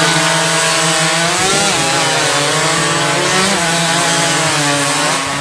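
Several chainsaws running flat out and cutting through logs together in a timed race. The engines make one loud, continuous drone whose pitch wavers a little as the saws load in the wood.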